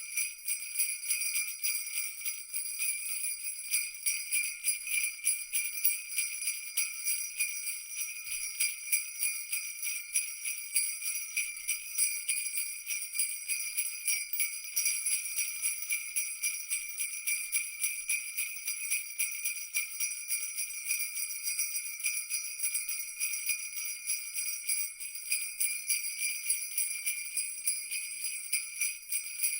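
Christmas jingle bells shaken without a break: a dense, steady jingling over the bells' high ringing tones.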